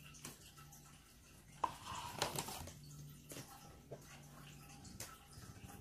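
Paper booklet pages and cardboard packaging being handled, rustling and sliding, with a sharp tap about a second and a half in and a few lighter clicks later, over a faint low hum.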